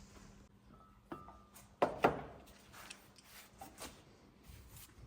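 Scattered sharp metallic knocks and clinks of hand tools. One about a second in rings briefly, two louder knocks come close together about two seconds in, and lighter clicks follow.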